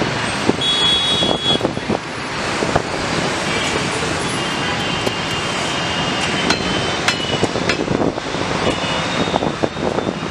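Steady road traffic noise, with scattered clicks and knocks and, at times, a thin high steady tone.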